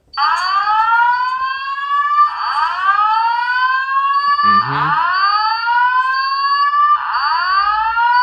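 System Sensor fire alarm speaker playing the slow-whoop alert tone of a Simplex voice-evacuation message: loud rising sweeps, each about two seconds long, one after another. It is the evacuation signal that comes before the spoken announcement.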